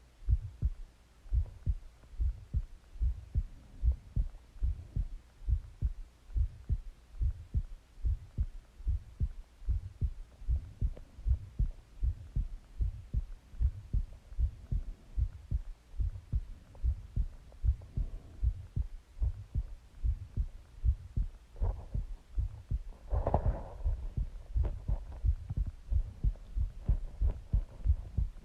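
A person's heartbeat heard close up at the chest: a steady, regular run of low thumps. About two-thirds of the way through there is a brief, louder noise that reaches higher in pitch.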